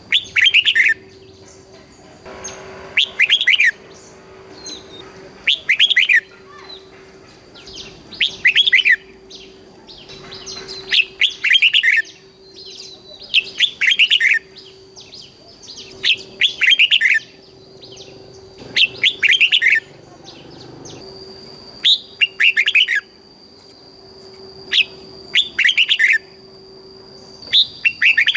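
Red-whiskered bulbul singing short, loud, warbling phrases, repeated every two to three seconds, some coming in quick pairs.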